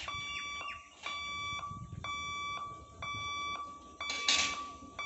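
Electronic level-crossing warning alarm beeping, about one steady-pitched beep a second, each roughly half a second long, sounding while the crossing gates are down for an approaching train. A brief hiss cuts in a little past four seconds.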